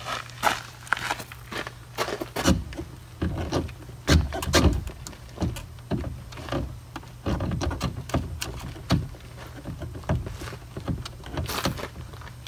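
Irregular clicks, knocks and plastic rattles of a 2017 Honda Ridgeline side mirror being worked back and forth to free it from the clip still holding it to the door.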